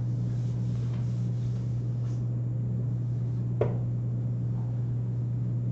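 Room tone: a steady low hum, with one short click about three and a half seconds in.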